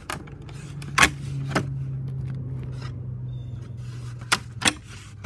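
A few sharp clicks and knocks, the loudest about a second in, as a window side jamb is pried and worked loose with a screwdriver. They sit over a steady low hum.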